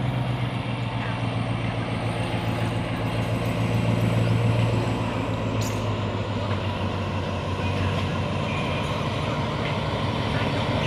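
Alsthom AHK diesel-electric locomotive 4207 running steadily as it slowly approaches hauling oil tank wagons, with a low, even engine hum that grows a little louder as it nears.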